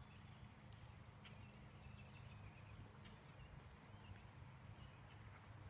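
Near silence: quiet outdoor ambience with a steady low rumble and a few faint, short bird chirps.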